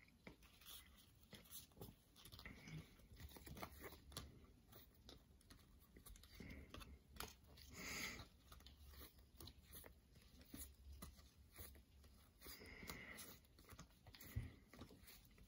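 Near silence with faint rustles and light clicks of trading cards being sorted by hand.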